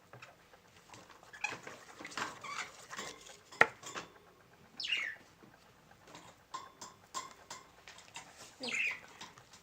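A utensil stirring sticky slime in a bowl: scraping and tacky clicking, with one sharp knock against the bowl a little over three seconds in. Two short, high, falling squeals come about five and nine seconds in.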